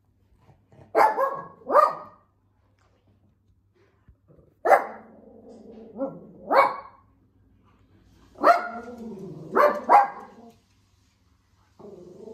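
Shih Tzu barking: about eight sharp barks in three bursts of two or three, with a low drawn-out sound between barks in the later bursts.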